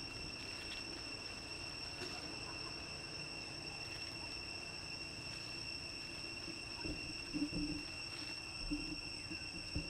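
Steady, unbroken high-pitched insect drone with two sustained pitches, over low background noise. A few brief low sounds break in between about seven and eight and a half seconds in, and again near the end.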